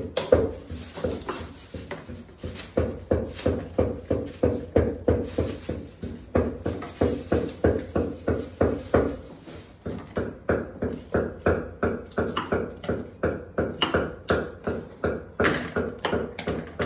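A knife chopping rapidly on a wooden cutting board, a steady run of knocks about three to four a second with a brief lull about ten seconds in.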